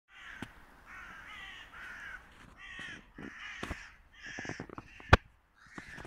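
Crows cawing, a steady run of harsh, falling calls about one a second, with one sharp, loud click about five seconds in.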